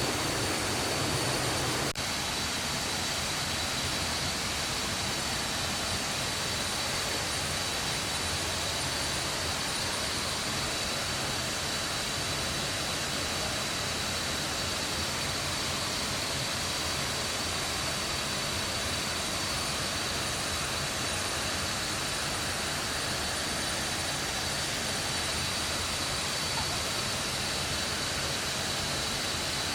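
Waterfall roaring: a steady, even rush of falling water with a thin steady high-pitched tone above it.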